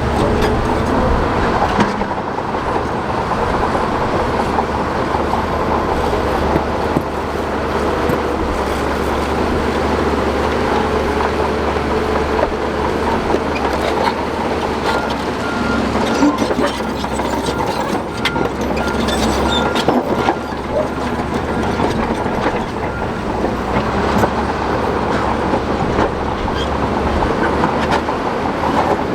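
Shantui DH17 crawler bulldozer's diesel engine running steadily under load, with the clanking and rattling of its steel tracks and rock being pushed. A rapid repeating beep sounds through the first half and stops about halfway.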